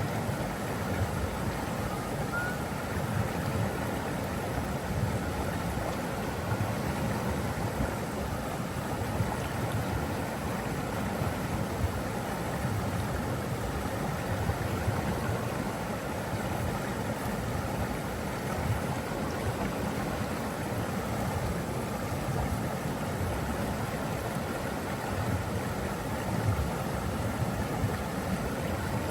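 Steady rushing of flowing water, with a low rumble and no pauses.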